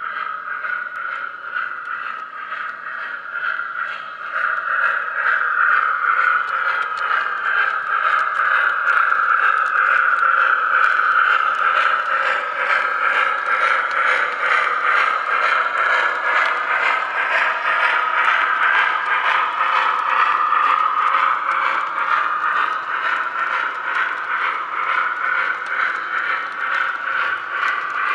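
O-gauge model train running past: the MTH Y6b steam locomotive's sound system chuffing with a rapid regular beat, and a long train of hopper cars rolling and rattling along the track. It grows louder about four seconds in as the train comes closer.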